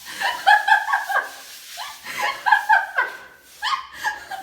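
High-pitched giggling laughter, several short bursts one after another.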